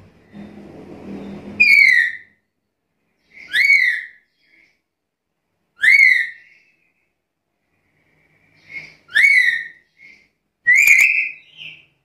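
Black-capped lory giving five loud, sharp whistled calls, roughly one every two seconds, each rising then dropping in pitch, with a few softer notes in between.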